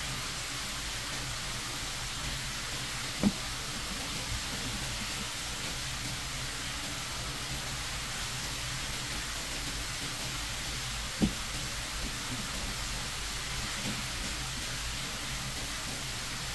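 A steady hiss throughout, with two sharp knocks of a knife against a cutting board while sashimi is sliced: one about three seconds in and one about eleven seconds in, plus a few faint ticks.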